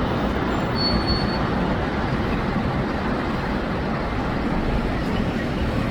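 Steady rushing noise of a fresh wind buffeting the microphone, over the wash of the sea.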